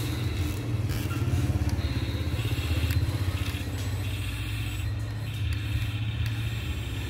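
Small electric motors and gearboxes of a radio-controlled toy excavator running as it raises its boom and arm: a steady low buzz with a higher whine over it.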